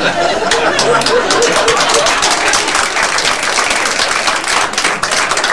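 Audience laughing and applauding after a punchline: steady, dense clapping with laughter over the first second or so.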